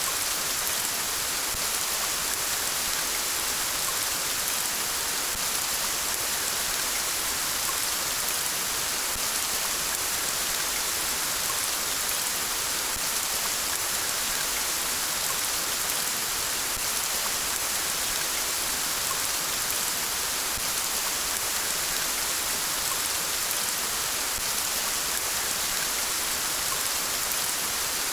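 Steady rain falling, an even hiss with no pauses or changes in strength.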